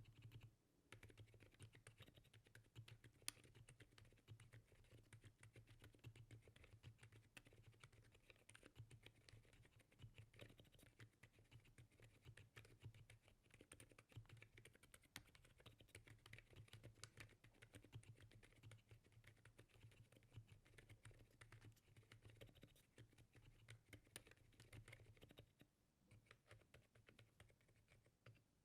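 Continuous fast typing on a full-size Monsgeek M5 QMK mechanical keyboard fitted with lubed Akko Fairy Silent switches and FL CMMK V3 stabilizers. The keystrokes are very quiet, soft and muted, with a brief pause near the end.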